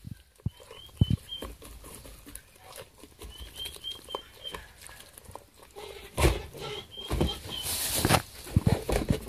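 Goat eating wet squash and bread mash from a plastic bowl: chewing and slurping, with its muzzle knocking and scraping against the bowl. There are louder scuffles about six and eight seconds in.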